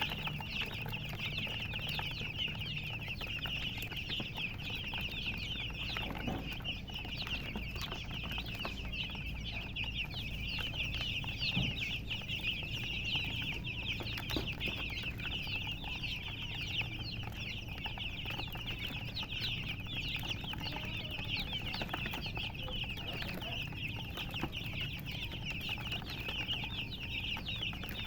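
A brood of baby chicks peeping constantly, many short high chirps overlapping with no break.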